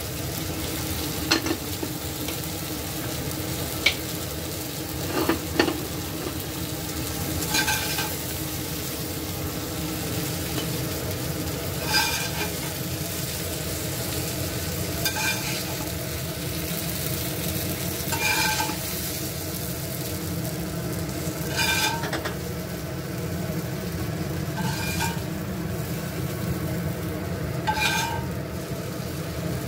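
Capsicum and tomato pieces sizzling in a cast-iron pan while a metal spatula stirs them. A few sharp knocks in the first six seconds, then a short ringing scrape of the spatula against the pan about every three seconds.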